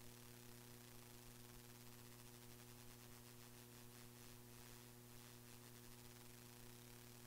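Near silence: only a faint, steady electrical hum and hiss from the recording chain, with no speech. The meeting's audio feed is missing here.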